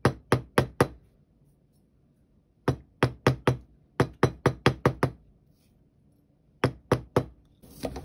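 Rawhide mallet tapping a wire hook clasp against a steel bench block, working the dead soft wire hard. The sharp knocks come about three to four a second in three short runs, with pauses of over a second between them.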